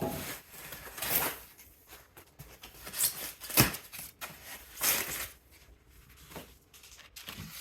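Rustling and handling noises as packaging and chainsaw-mill parts are unpacked from a box, in several short bursts, with one sharp knock about three and a half seconds in.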